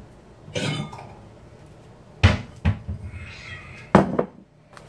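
A kitchen cupboard opened and shut, with three sharp knocks and a brief scrape as a cereal bowl is taken out and set down on the counter.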